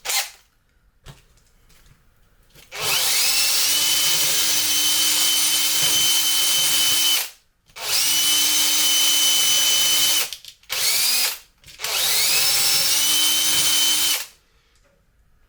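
Power drill fitted with a sanding drum, run in three bursts to open up a tight hole in a 3D-printed part; each burst spins up to a steady high whine and then stops, with two short blips of the trigger between the second and third.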